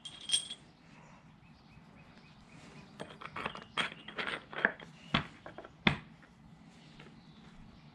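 Small metal wheel hardware being handled: a ringing clink, then a run of clicking and rattling and two sharper knocks.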